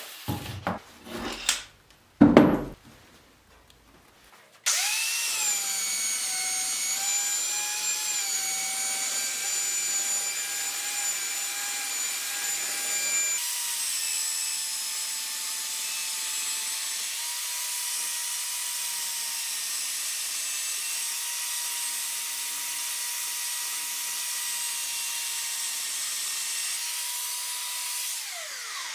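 A handheld electric belt sander runs on a log's sawn end grain: a steady motor whine with the rasp of the belt on wood. It starts about a fifth of the way in after a few knocks, and spins down near the end.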